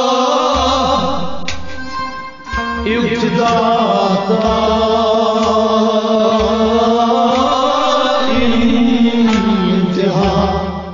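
Devotional kalaam sung by a solo voice with instrumental accompaniment and a regular low drum beat. The music fades out near the end.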